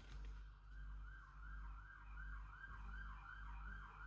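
Faint emergency vehicle siren in a fast yelp, about three rising-and-falling sweeps a second.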